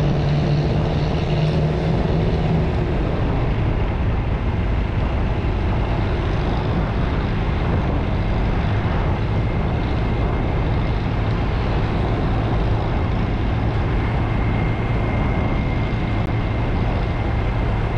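Motorcycle engine running steadily while riding at cruising speed, under a constant rush of wind and road noise. The engine note sits a little higher for the first couple of seconds, then settles.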